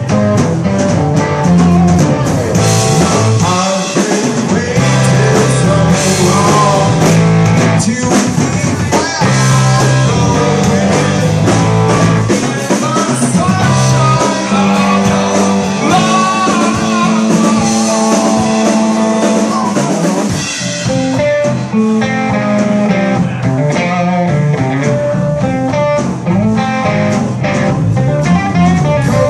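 A live rock band playing loudly: electric guitars, bass and a drum kit, with a singer.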